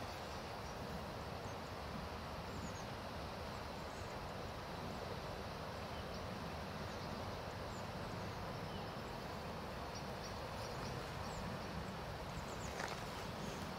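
Pyroland Giga Smoke 300 white smoke flare burning, with a steady hiss as it pours out smoke.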